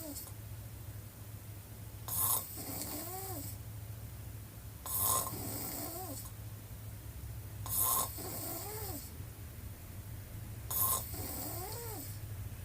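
A woman snoring with her mouth wide open, in slow regular breaths about every three seconds, four in all. Each breath is a harsh, raspy snore followed about a second later by a short tone that rises and falls. A steady low hum runs underneath.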